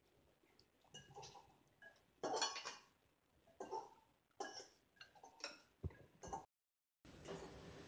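Chopsticks tossing rice vermicelli and vegetables in a ceramic bowl: quiet, irregular clinks and rustles of the chopsticks against the bowl, the loudest a little over two seconds in. The sound drops out completely for half a second about two thirds of the way through, then a faint hiss.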